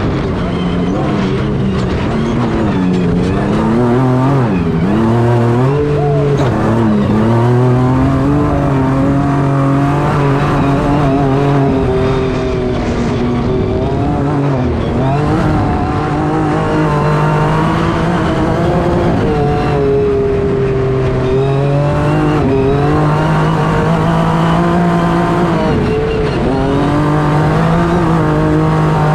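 Honda Ridgeline Baja race truck's twin-turbo V6 at full throttle at speed, heard from inside the cab. The revs climb and drop over and over as the driver shifts and lifts, over a steady rush of tyres on dirt.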